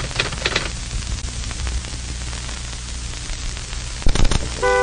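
Steady static-like hiss over a low hum, with a few clicks in the first second and a short crackle about four seconds in; a steady multi-note tone sets in near the end.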